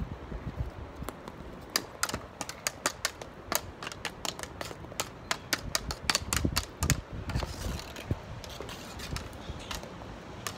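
Plastic floorball stick blade and ball clicking and tapping against each other and the paving in quick, irregular strings of sharp clicks, thickest in the middle of the stretch and thinning out near the end.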